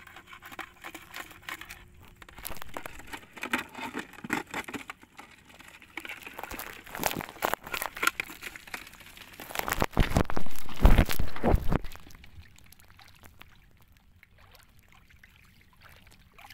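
Shallow seawater splashing and sloshing as someone wades through it, in irregular bursts, loudest about ten to twelve seconds in, then quieter near the end.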